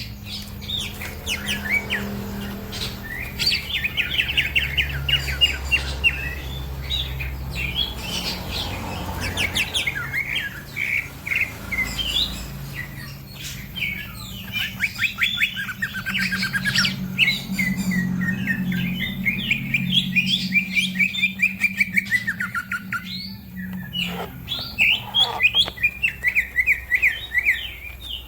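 Green leafbird (cucak ijo) and other birds singing in fast, dense chirping trills, with a low steady hum underneath.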